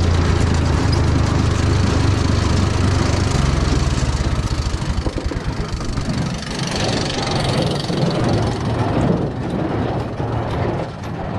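Ford 4000 tractor engine running with a steady low drone. The drone drops away about three and a half seconds in, leaving a quieter, uneven engine beat.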